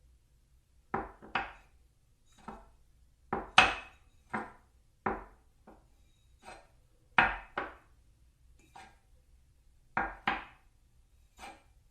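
Plates knocked and set down against a table: a series of short, sharp clacks, often in quick pairs, spaced roughly a second apart.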